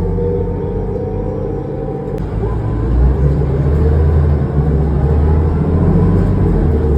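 On board a 2005 New Flyer D40LF diesel transit bus under way: engine drone with a whining tone, getting louder about three seconds in.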